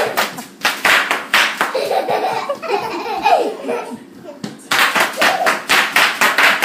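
Bubble wrap being popped underfoot: rapid, irregular runs of sharp pops, thinning out while a child laughs in the middle and pausing briefly around four seconds in before a dense run starts again.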